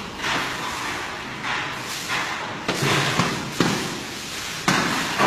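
A cooking utensil stirring food in a pot: a series of dull knocks and scrapes against the pot, coming roughly every half second to a second.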